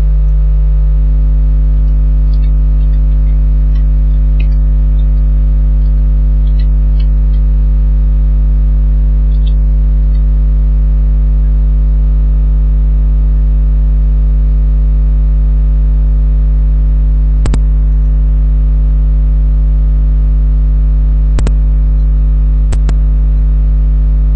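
Loud, steady electrical mains hum with its overtones, picked up by the recording microphone. Faint keyboard typing runs through the first several seconds as text is typed, and three sharp clicks come in the second half.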